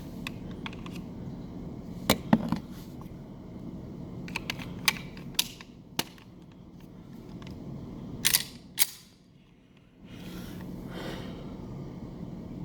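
Pistol fire and handling at a range: scattered sharp cracks and clicks, single reports spread out, the loudest a close pair about two seconds in and another pair a little past the middle.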